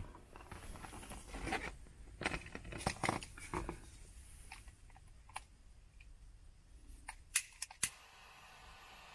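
Crackling and clicking as hands handle wire and a wire stripper, then a few sharp clicks from a small butane torch's push-button igniter about seven seconds in, followed by the soft hiss of its flame starting near the end.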